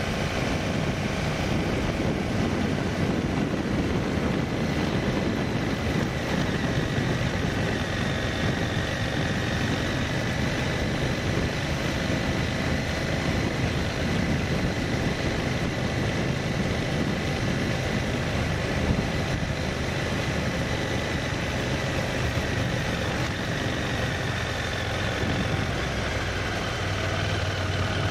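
Motorcycle engine running steadily while under way, its low hum growing a little stronger near the end.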